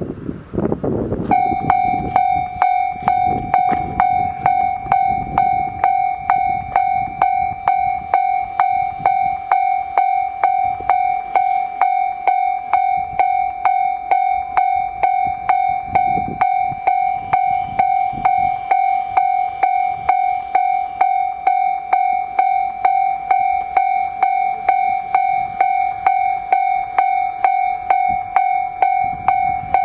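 Japanese railway level-crossing warning bell that starts about a second in and rings on in an even, rapid repeat, signalling that a train is approaching.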